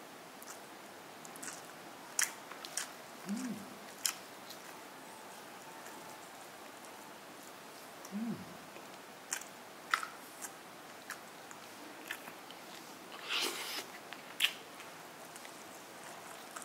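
Crispy breaded chicken chop crackling and crunching as it is torn apart by hand and eaten, in scattered sharp crackles with a denser crunch near the end. Two short low hums falling in pitch come in between.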